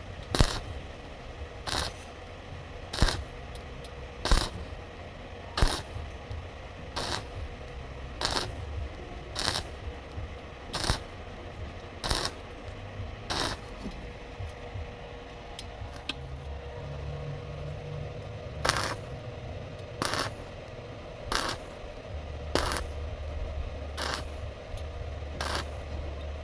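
A run of short, sharp, evenly spaced hits or bursts, about one every 1.3 seconds and some twenty in all, over a low steady hum.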